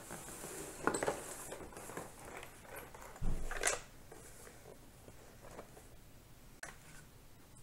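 A cardboard Monopoly game board handled on a wooden table: rubbing and light knocks, a dull thump about three seconds in, and a few sharp clicks.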